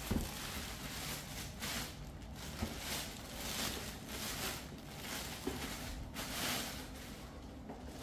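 Soft rustling and handling sounds as the plastic body of a cordless stick vacuum is turned over and shown, with a few short swishes and a couple of faint clicks; the vacuum is not running.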